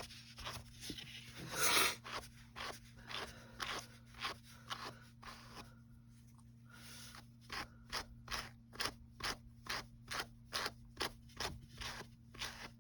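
Wire pet brush raked repeatedly through a crochet gnome's acrylic yarn beard, giving short scratchy strokes. There is a longer, louder stroke about two seconds in and a short lull around six seconds, then quicker regular strokes at about two to three a second.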